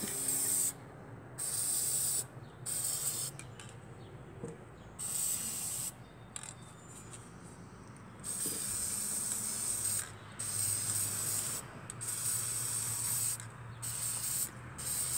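Aerosol spray-paint can hissing in repeated bursts of one to two seconds, with short pauses between, as it is sprayed over small toy teacups and saucers.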